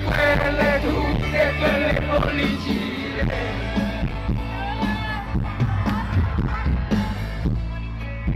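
Live rock band playing with a singer, loud, over a steady bass line and a regular drum beat.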